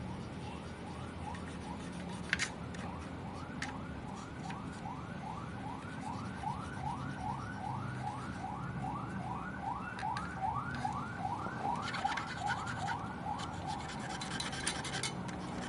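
Rhythmic squeaky rubbing: a long run of short rising squeaks, about three a second, as of something being rubbed back and forth, with a few sharp clicks in the first seconds.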